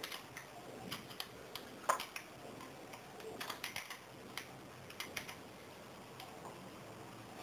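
Faint, irregular metal clicks and ticks of an Allen key working the screws that fasten a brush cutter's engine to its aluminium clutch housing, the sharpest click about two seconds in.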